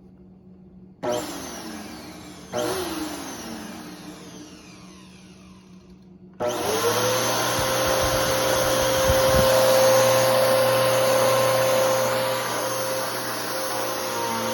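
Bissell PowerForce Helix 3313 upright vacuum cleaner switched on briefly twice, each time its motor whining down again with a falling pitch. About six seconds in it comes on and runs steadily with a high whine, its filter badly clogged.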